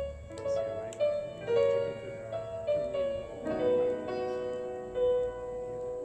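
Recorded piano music played over a hi-fi system of Trafomatic valve amplifiers and Blumenhofer loudspeakers, heard in the room: a run of struck notes in quick succession, settling on a longer held note near the end.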